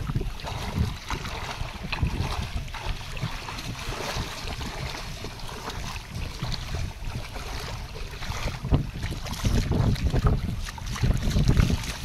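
Wind buffeting the microphone outdoors: an uneven, gusty low rumble that eases in the middle and picks up again near the end.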